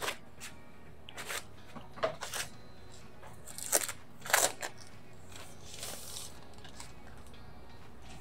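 Thin plastic protective film crinkling and rustling in short irregular bursts as it is peeled off a laptop by hand.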